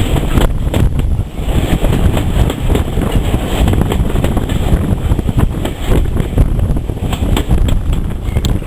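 Wind buffeting the microphone: a loud, uneven low rumble with frequent crackles.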